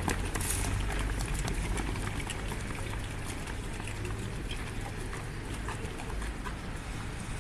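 Footsteps of a large group of dancers jogging and then walking into formation on asphalt, the sharp steps thinning out to a few scattered clicks as they come to a stop, over a steady low rumble.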